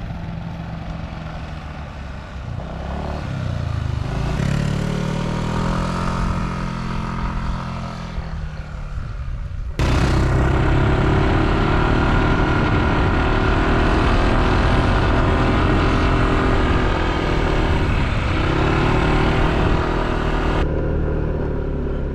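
Yamaha NMAX scooter's single-cylinder engine running under way on an uphill ride, its pitch rising for a few seconds around four seconds in. The sound jumps suddenly louder about ten seconds in and changes again near the end.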